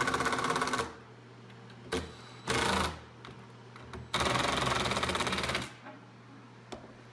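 DeWalt cordless impact driver hammering screws into a plywood crosscut sled to fasten its fence. There are three bursts of rapid rattling: a short one at the start, a brief one about two and a half seconds in, and a longer one of about a second and a half starting about four seconds in.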